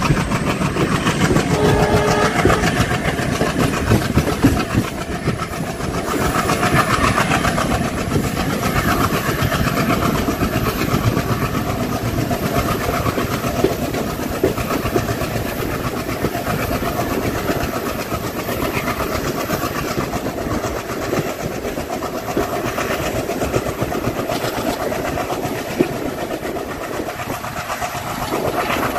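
Passenger train running at speed, heard from aboard a coach: a steady rumble with the wheels clattering over rail joints.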